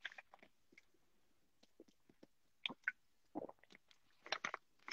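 Faint, scattered short clicks and brief soft noises, a little louder in a few clusters toward the end.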